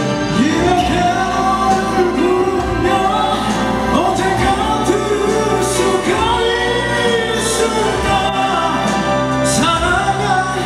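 Male vocal group singing a song live over instrumental accompaniment, with long held notes that waver in pitch.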